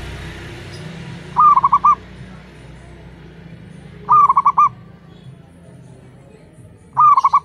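Zebra dove (perkutut) cooing: three short phrases of four or five quick rolling coos each, about three seconds apart. A rushing hiss fades away over the first two seconds.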